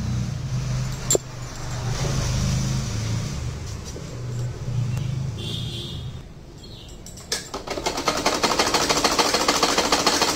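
Domestic sewing machine starting up about seven seconds in and running in a fast, even clatter as it stitches a fall onto a saree hem. Before that there is a low steady hum and a single click.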